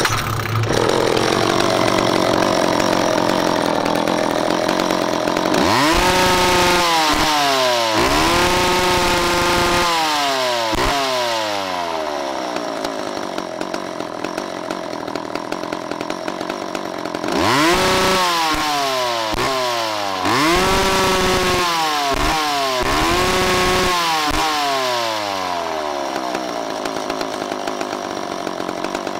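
McCulloch 10-10 two-stroke chainsaw, with no bar or chain fitted, catching on a pull of the starter rope and settling to idle. It is then revved to full throttle in short bursts, twice about six seconds in and three more times about eighteen seconds in, each time winding back down to idle.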